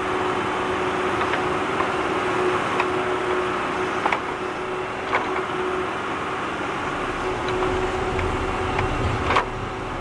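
Tractor engine running steadily while digging, with a few sharp knocks scattered through. A heavier low rumble comes in about two thirds of the way through.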